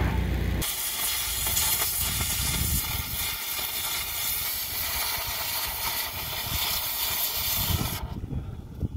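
Handheld cutting torch slicing through steel plate: a steady, loud hiss that stops abruptly about eight seconds in.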